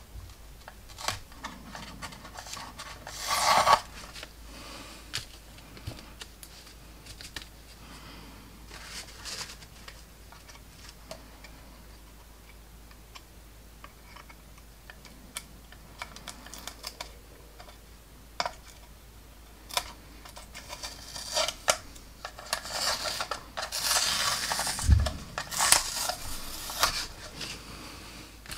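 Small handling sounds of masks being peeled off a plastic model aircraft with metal tweezers: scattered light clicks and scratches, with a louder scratchy rasp about three seconds in and a busier run of clicks and rustles near the end.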